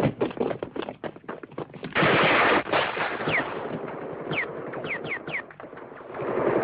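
Film battle sound effects: rapid crackling gunfire throughout, a loud explosion blast about two seconds in, then several short whistles falling in pitch. The sound is dull from an old, narrow-band recording.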